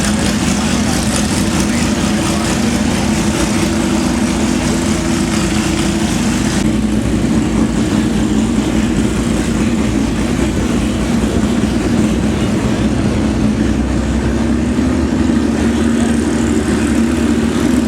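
A vehicle engine running steadily at a constant speed, with a broad rushing noise over it. The sound changes abruptly about seven seconds in.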